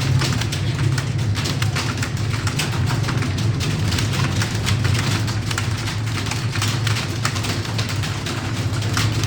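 Many computer keyboards being typed on at once, a dense, irregular patter of key clicks, over a steady low hum.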